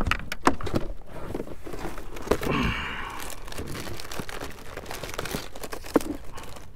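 Close handling noises: a string of short knocks and clicks with crinkling rustle, a brief rustling hiss about halfway through and one louder knock near the end.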